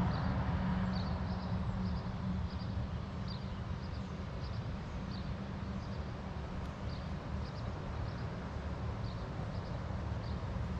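Short, high bird chirps repeating every half second to a second, over a steady low rumble.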